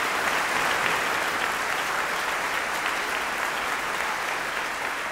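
Audience applauding steadily, easing slightly near the end.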